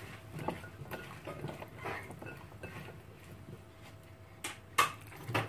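Hands tossing sliced raw potatoes in an oily herb marinade in a glass baking dish: soft wet shuffling and faint clicks of potato against glass, with a few sharper clicks near the end.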